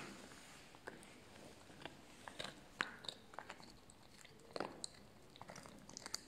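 Puppy gnawing and chewing a bone: an irregular scatter of small crunches and clicks of teeth on bone, a few sharper ones between about two and five seconds in.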